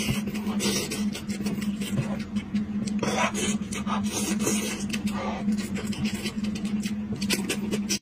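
Close-miked eating sounds: wet chewing, lip-smacking and slurping with short sharp clicks as meat is torn from a sauced sheep's head by hand and bitten into, over a steady low hum.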